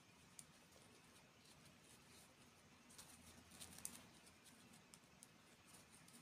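Faint scattered clicks and light taps over quiet room tone, busiest about three to four seconds in.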